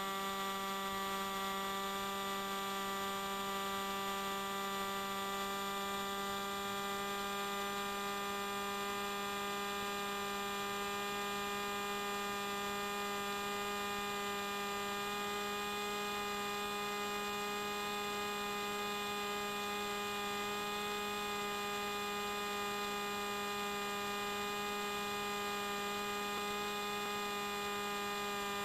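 A steady hum with many overtones, unchanging in pitch and level.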